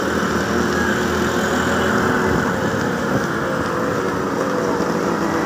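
Several small commuter motorcycles riding together at steady speed, their engines blending into a continuous drone.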